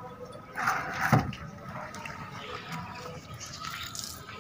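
Water from a hose splashing and trickling, with a louder splash about half a second in followed by a sharp knock just after a second in.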